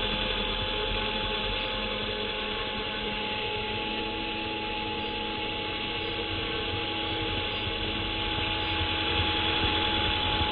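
ERA C186 Pro remote-control helicopter's electric motors whining steadily as the main and tail rotors spin, with wind rumbling on the microphone. The sound grows a little louder near the end as the helicopter lifts off the grass.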